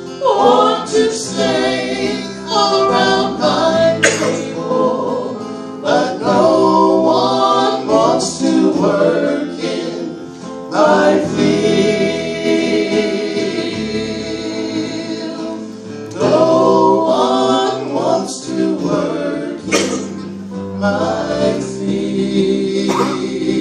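Live southern gospel music: a small mixed group singing in harmony over electric guitar, acoustic guitar and keyboard.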